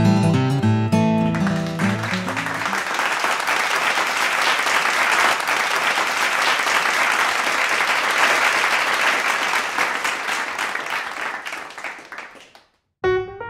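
Acoustic guitar music ends about two seconds in and gives way to a long burst of crowd applause, which fades out near the end. Piano music starts just after the applause stops.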